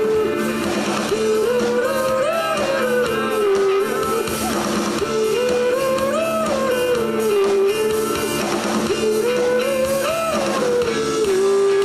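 Live rock band playing electric guitars and drums, with singing. A smooth lead line repeats the same rising-and-falling phrase about every four seconds.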